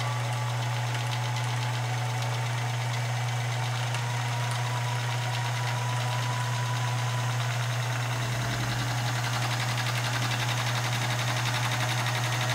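Union Special 39200 AE industrial overlock sewing machine running steadily at speed, stitching a strip of fabric fed by hand: a constant motor hum under a fast, even rattle of the stitching mechanism.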